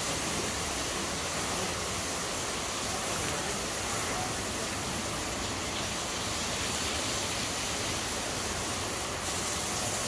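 Rushing river water: a steady, even hiss with no breaks.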